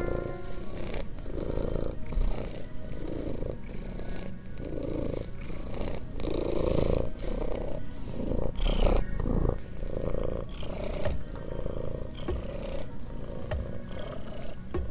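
A black cat purring close to the microphone, in steady swells with each breath. About nine seconds in there is a brief louder scuffing noise.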